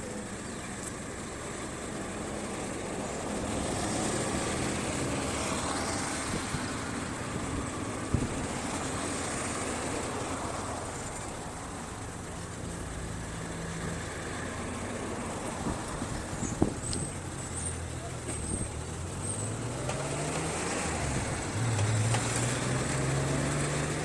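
Motor vehicle engine running over a steady background rumble, climbing in pitch about 19 seconds in and then holding high, with a couple of sharp knocks along the way.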